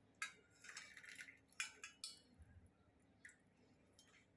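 Several faint, irregular clinks and taps of kitchen utensils against glasses, most of them in the first two seconds, while the hot kadha is strained into glasses.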